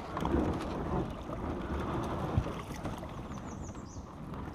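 Fast stream current rushing around a small boat, with wind buffeting the microphone.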